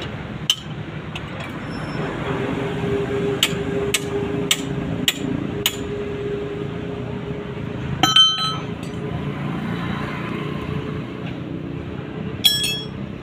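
Metal tools and parts being handled: a run of light sharp taps, about six in the first six seconds, then two short ringing metallic clinks, over a steady background hum.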